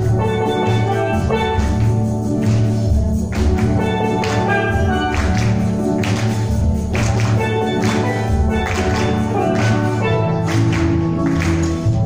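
Steel drum ensemble playing a tune live on steel pans, with strong low notes under the melody and regular percussion hits keeping a steady beat.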